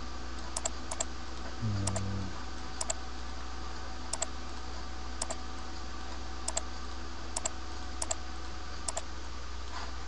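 Computer mouse button clicking: about ten separate clicks spaced roughly a second apart, each a quick press-and-release pair, over a steady low background hum.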